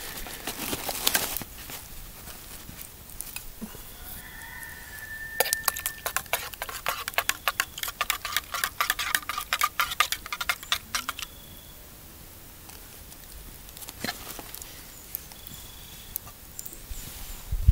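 A quick run of light metallic clinks, a few seconds in, lasting about six seconds: camp tableware being handled against a metal cup or dish.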